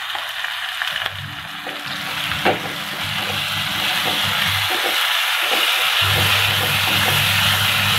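Onion-tomato masala with ginger-garlic paste sizzling in hot oil in a pan, growing louder from about four seconds in, with a couple of knocks and scrapes from a spatula stirring it. A low steady hum sits underneath; it drops out near the start and comes back about six seconds in.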